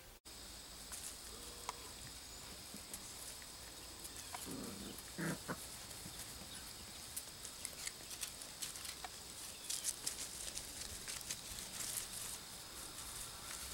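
Border Collie puppies scampering on grass: light rustling and many small scattered patters and clicks, with a couple of brief yips about four and a half to five seconds in.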